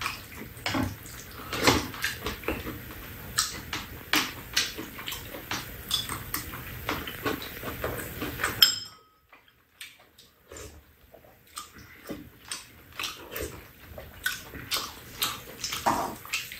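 Metal spoons clinking and scraping against a frying pan and small bowls, with close-up chewing and slurping while eating. Many short clinks throughout; the background hum drops out suddenly about halfway through, and the clinks after that are fainter.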